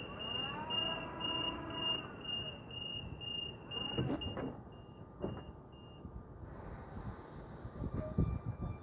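Door-closing warning beeps of a double-deck Sydney suburban electric train: a high beep repeating about twice a second, stopping about six seconds in as the doors shut. A loud hiss of air follows, and a steady motor whine starts near the end as the train begins to move.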